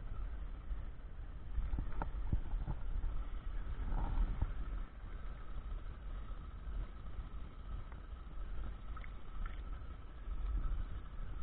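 Low rumble of wind on the microphone, with small splashes of river water against the side of a boat as a hand releases a pike; a few sharp knocks about two seconds in.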